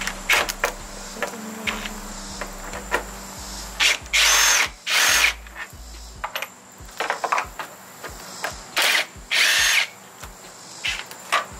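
Ryobi cordless drill backing out the top headlight mounting bolts: four short spins with a high motor whine, in two pairs about four seconds apart, with small clicks of handling between them.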